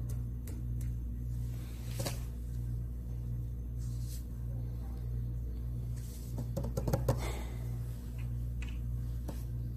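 A steady low equipment hum that swells and fades a little faster than once a second, with a few scattered clicks and a short run of clicks and knocks about seven seconds in.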